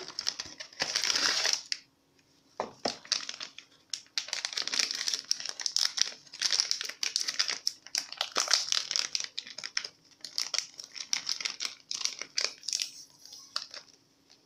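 A paper-and-foil packet of chocolate flan powder crinkling and rustling as it is handled and emptied into a mixing bowl: a dense run of irregular crackles, with a brief pause about two seconds in.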